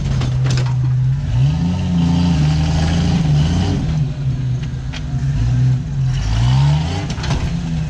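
Jeep Cherokee XJ engine working at low speed as it crawls over rocks, revving up about a second and a half in and again near the end. A few sharp knocks can be heard, about half a second in and later on.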